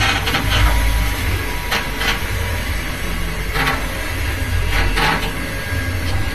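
Heavy truck engine running with a low steady rumble as it slowly hauls a concrete bridge girder on a long telescopic trailer. A few short sharp rattles or hisses cut in now and then.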